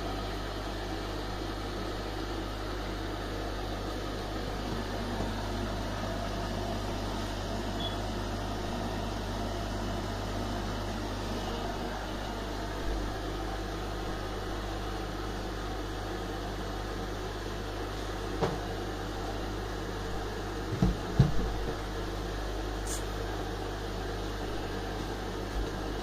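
Front-loading washer dryer running with a steady low hum, the noise of turning its drum, while the drum itself stays still: the machine is operating but the drum does not rotate. A few brief knocks come about three quarters of the way through.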